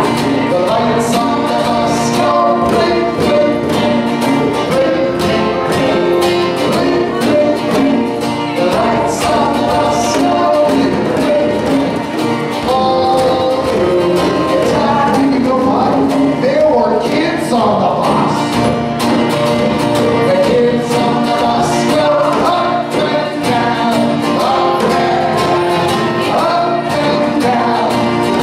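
Group singing of a children's song to acoustic guitars and hand drums, with djembe and conga-style drum hits keeping the beat under the voices.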